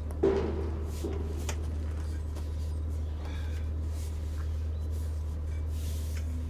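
A metal muffler being handled against a truck's body: a sharp clunk about a third of a second in, then a few lighter knocks and some scraping as it is lifted up into place, over a steady low rumble.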